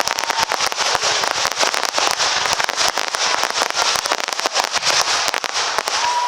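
Aerial fireworks going off in a dense, continuous barrage of sharp crackling reports, many cracks a second. A steady high whistle fades out about half a second in, and another begins near the end.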